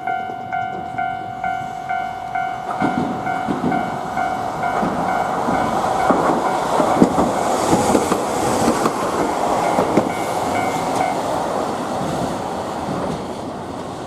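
Hankai Tramway car 704 passing. It rumbles up to a peak in the middle and fades away, with wheels knocking over rail joints several times. At the start, a level-crossing warning bell clangs about twice a second.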